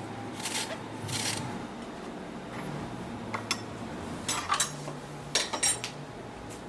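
Kitchen dishes and utensils being handled: a string of short scrapes and clinks, the loudest about two thirds of the way through, with a brief metallic ring near the end.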